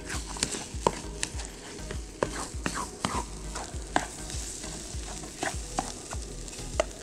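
Spatula scraping and knocking irregularly against a small metal camping pan while scrambled eggs sizzle in it over a gas camping stove.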